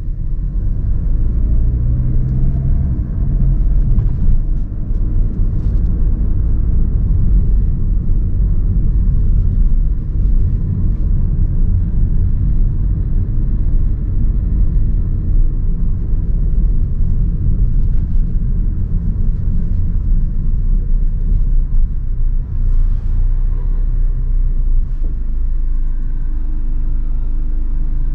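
Car on the move: a steady low rumble of engine and road noise, with a faint engine hum rising in pitch early on.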